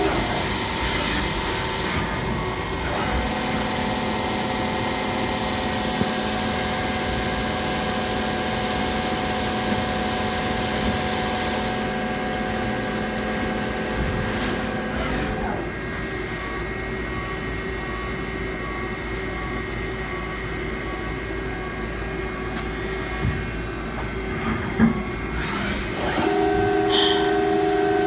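DMG Gildemeister CTX 410 CNC lathe machining a long bar under coolant: a steady machine whine made of several held tones over a hiss of coolant spray. The tones shift about 3 seconds in, drop about halfway through and rise again near the end as the program moves between operations, with a few short clunks in between.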